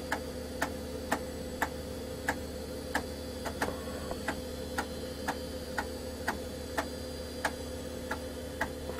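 PC floppy disk drive reading a program disk, its head stepping with a sharp click about twice a second at slightly uneven intervals, over the steady hum of the computer's fan.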